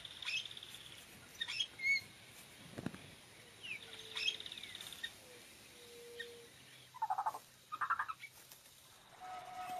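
Yellow-rumped caciques calling: short rattling trills, quick whistles and gliding notes, with two lower chattering bursts near the end.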